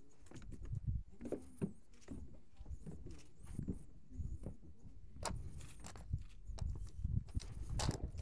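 Footsteps going down wooden deck steps and then crunching across gravel, as a run of irregular thumps and scuffs.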